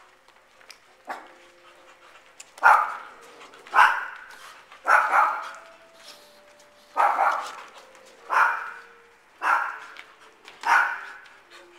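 A dog barking, seven loud barks spaced roughly a second apart, after a single softer bark about a second in.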